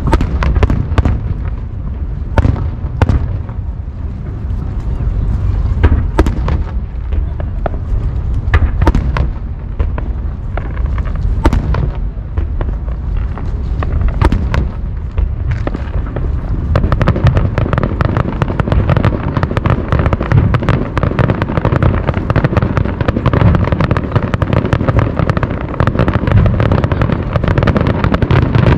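Fireworks display: scattered booms and sharp cracks of shells bursting over a constant low rumble, turning about halfway through into a dense, rapid crackling of many bursts at once that grows louder.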